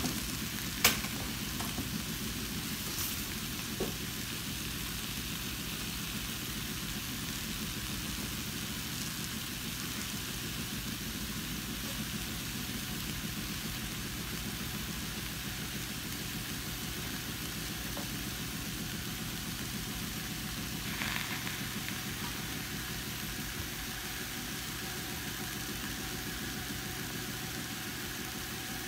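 Salmon and vegetables faintly sizzling in a Saladmaster stainless steel pot as it heats: a steady hiss over a low steady hum, with one sharp click about a second in and a few softer ticks.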